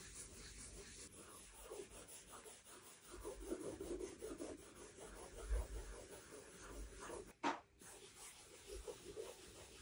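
Cotton-wool swab rubbing faintly back and forth over the paint surface of an oil portrait on canvas, wiping on diluted conservation soap to lift the last dirt and paint residue, with one short louder bump about seven and a half seconds in.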